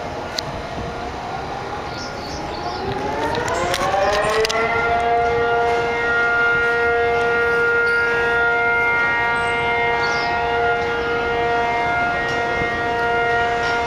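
Civil defense air raid siren winding up, rising in pitch over the first few seconds, then holding a steady wail at constant pitch. It is the signal that opens an air raid drill, telling people to take shelter.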